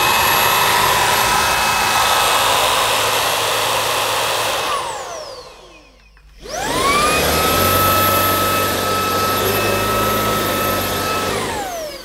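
Shark WandVac cordless vacuum running with its motorised floor nozzle's brushroll spinning: a steady high whine over motor noise. It winds down about five seconds in, spins back up a second later, and winds down again near the end as the cleaner switches itself off on a flat battery.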